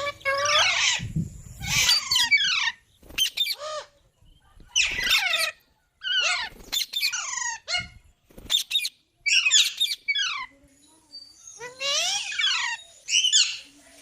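Green parrot calling in a run of short, harsh squawks, roughly one a second, most of them falling in pitch.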